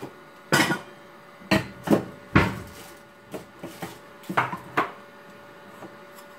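Kitchen clatter: about eight sharp knocks and clinks of containers, lids and utensils being handled, spread irregularly over a few seconds.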